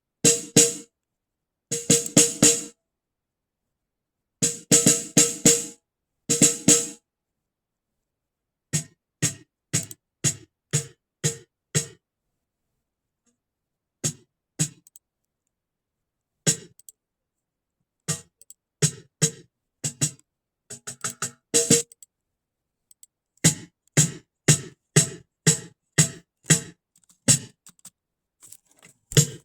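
Close-miked snare drum played in quick clusters of strokes, then sparser single and grouped hits, each burst cut off abruptly to silence by a noise gate.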